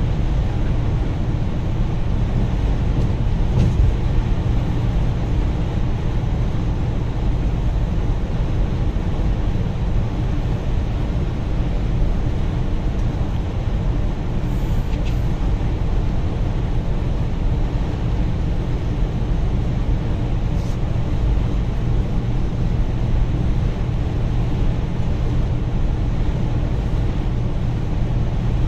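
Steady engine drone and road rumble of a coach bus running at speed, with no change in pace.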